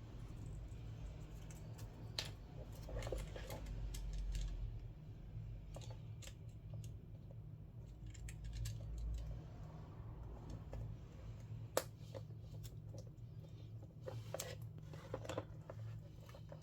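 Scattered small clicks and taps of tools and parts being handled during an iPad screen replacement, over a steady low hum, with one sharper click about twelve seconds in.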